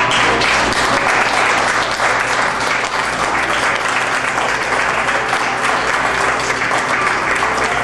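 A small audience applauding steadily.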